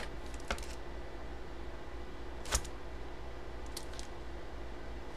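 Handling sounds from opening a cardboard mystery box and lifting out a hard plastic graded comic slab: a few light clicks, then one sharper click about two and a half seconds in. A steady low hum runs underneath.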